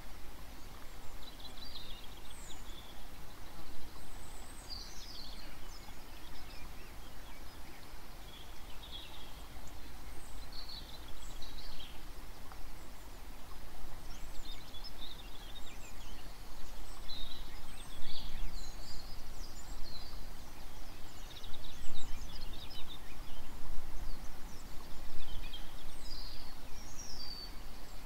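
Birds calling now and then, short high chirps scattered throughout, over a steady low rumble of outdoor background noise.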